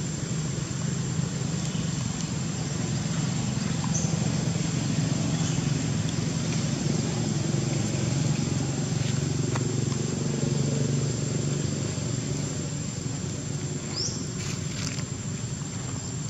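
A steady low engine drone, like a motor running, holds at an even level. Two brief high chirps come about four seconds in and near the end.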